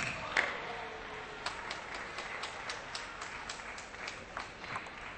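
Table tennis ball clicking off bats and table, the last two hits at the very start, then light, fairly regular clapping of about four claps a second.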